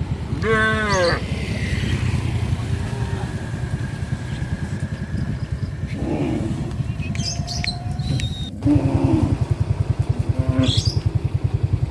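A small motorcycle engine running with a fast, even low throb, louder in the last third, while a cow moos a few short times over it.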